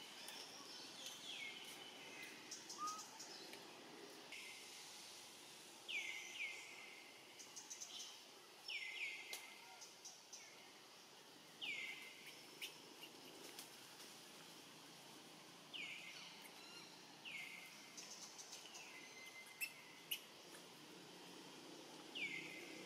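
A bird giving short, downward-slurred chirps, singly or in quick pairs, every couple of seconds over faint forest background, with scattered small clicks.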